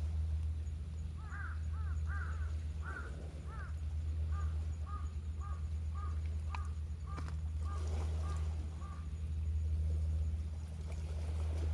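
A crow cawing in a series of calls. A few arched caws come first, then a quicker, even run of about two or three caws a second that stops near the end, over a steady low rumble.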